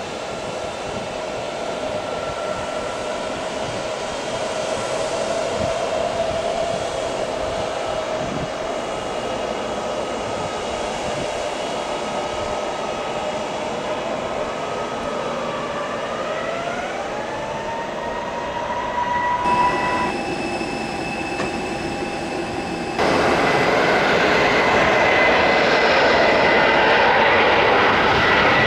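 Turbofan engines of a Bombardier Global business jet running as it taxis: a steady whine over a rushing hum. About two-thirds of the way through, the whine rises in pitch as thrust is added. A few seconds before the end the engine noise jumps suddenly louder and fuller as the jet lines up on the runway.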